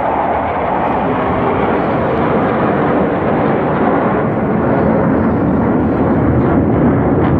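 A formation of Sukhoi twin-engine fighter jets flying past, a dense, steady jet engine noise that grows slightly louder and lower in pitch as they pass.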